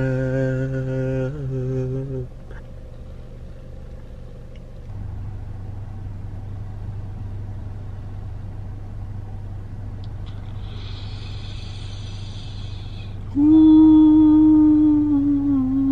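A man humming with closed lips: briefly at the start, then louder from about three-quarters of the way through, holding steady notes that step down slightly in pitch. In between, a steady low hum inside the car, with a short hiss about two-thirds of the way in.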